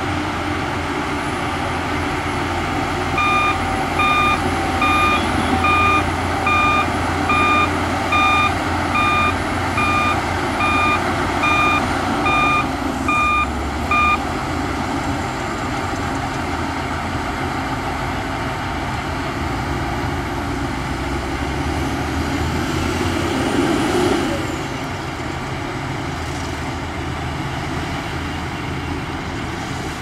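Heavy diesel engines of a Shantui DH17 bulldozer and a dump truck running steadily. A reversing alarm beeps a little over once a second for about eleven seconds, starting a few seconds in. Near the end the engine noise swells briefly, then drops back.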